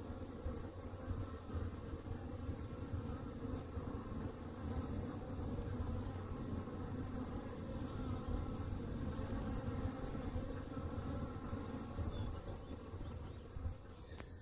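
Many honey bees buzzing at a hive entrance: a steady, continuous hum.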